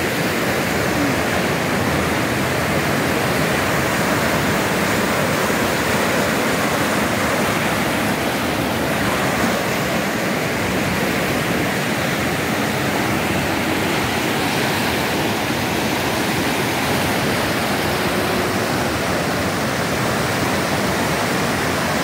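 Muddy, fast-flowing Chenab River rushing through rapids over rocks: a loud, steady noise of turbulent water.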